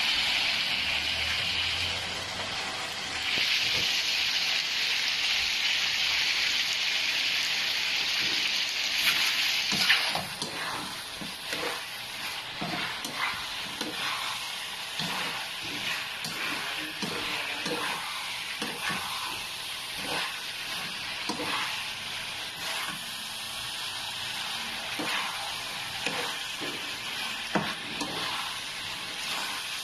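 Chicken gizzards frying in a pan with a little freshly added oil: a loud, steady sizzle for the first ten seconds or so, which then drops off. From then on, a spatula scrapes and stirs the gizzards against the pan in many short strokes over a lighter sizzle.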